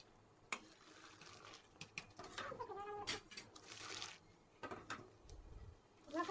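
A metal ladle and a wire strainer clink and scrape against a large aluminium pot, with the slosh of liquid being scooped out of the rice. About two and a half seconds in comes a short, wavering, high-pitched cry.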